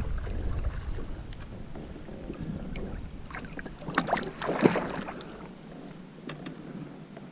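Water sloshing and splashing against a kayak, with a few sharp knocks on the hull and wind on the microphone; the loudest splash comes about four to five seconds in.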